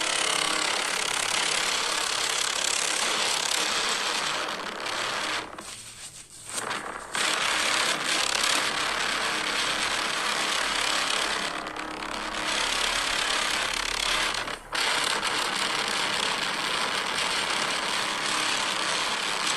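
Loud, harsh hiss and crackle from an iPhone 14 Pro Max recording whose microphone is being jammed by ultrasonic microphone jammers, played back on the phone: the jamming noise buries everything else. It drops out briefly three times.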